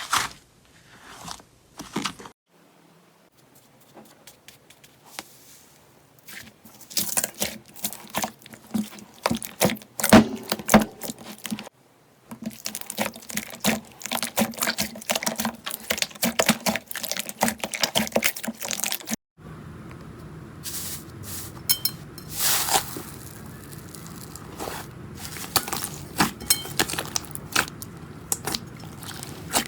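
Slime being squished and pressed by hand, making dense sticky clicks and crackles. The sound changes abruptly a few times as one short clip cuts to the next.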